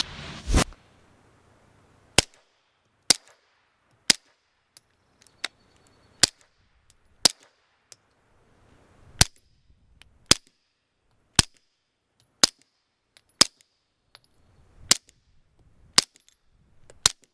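SAR9 SOCOM 9mm pistol firing through a Rugged Obsidian 9 suppressor: about fourteen sharp shots at roughly one a second, 124gr Super Vel followed by 147gr loads. The pistol cycles on each round.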